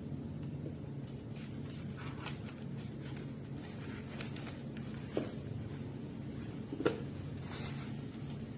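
Handling noise: scattered faint clicks and rustles with two short knocks a second and a half apart, over a steady low hum.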